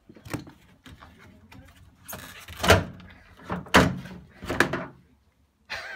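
Plastic front grille of a Ford Focus Mk2 being pulled free of the car: a handful of hard plastic clunks and knocks as it comes loose from its clips, the loudest about halfway through.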